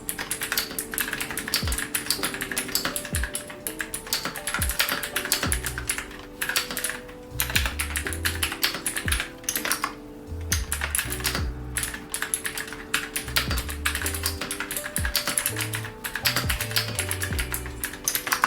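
Typing on a stock WTT Gomu87 gasket-mounted TKL mechanical keyboard with linear switches and double-shot PBT keycaps: a fast, steady stream of keystrokes broken by a few brief pauses.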